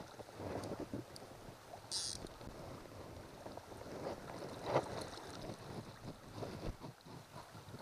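Fast river water rushing over a shallow riffle, with wind buffeting the microphone in uneven gusts; a short hiss about two seconds in and a brief louder knock about five seconds in.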